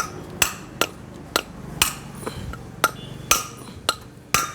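Hammer tapping a wheel bearing into a motorcycle wheel hub, metal on metal: about nine sharp, ringing strikes at roughly two a second, seating the bearing tight.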